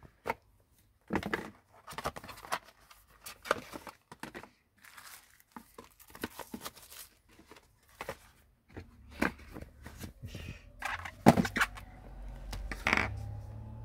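Phone parts and plastic being handled on a repair bench: a run of short scratchy rustles and clicks. A low hum sets in about two-thirds of the way through, with a faint rising whine near the end.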